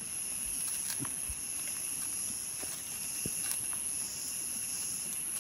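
Steady high-pitched drone of insects, such as cicadas or crickets, with a few soft knocks and clicks scattered through it.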